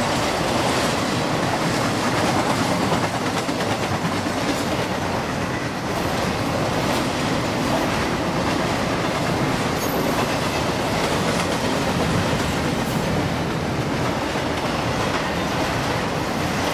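Double-stack intermodal container cars rolling past steadily: steel wheels rumbling on the rail, with faint scattered clicks from the wheels and trucks.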